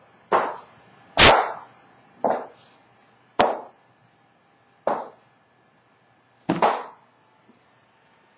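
A series of separate knocks and bumps, about six in all at irregular gaps of roughly a second, from someone moving about and handling things close to the microphone. The loudest and sharpest is a click-like knock about a second in.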